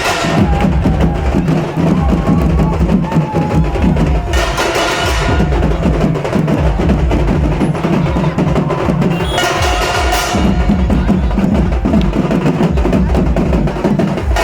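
Sambalpuri baja band of dhol and nisan drums playing a fast, dense rhythm with heavy bass strokes, rising in two brighter, louder swells about four and ten seconds in.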